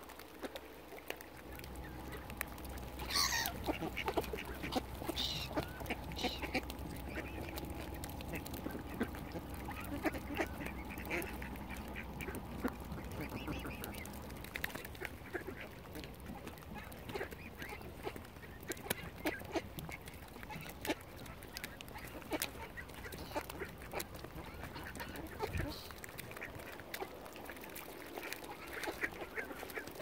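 Mallard ducks quacking among a crowd of waterbirds, with many short clicks and taps throughout and a falling call about three seconds in.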